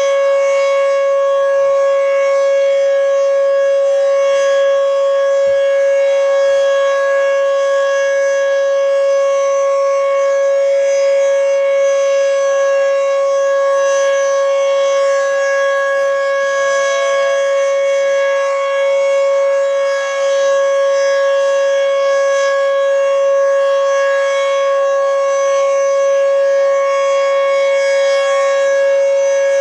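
Federal Signal Fedelcode Model 20 dual-rotor outdoor warning siren sounding a loud, steady tone at full pitch during its monthly test.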